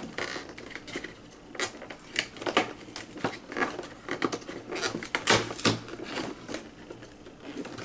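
Cardboard advent calendar box being handled to open one of its compartments: a run of irregular light clicks, taps and rustles, with a sharper knock about five seconds in.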